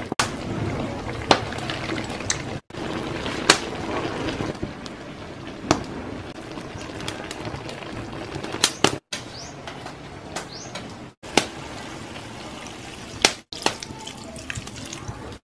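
Tilapia simmering in coconut milk in a pan: a steady bubbling hiss with occasional sharp pops, breaking off for an instant several times.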